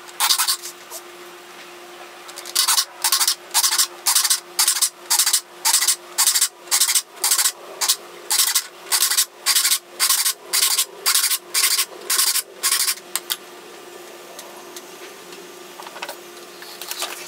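Saw file being pushed across the teeth of a 14 TPI Henry Disston & Sons No. 7 back saw, sharpening it: a run of short rasping strokes, about two a second, that stops about two-thirds of the way through.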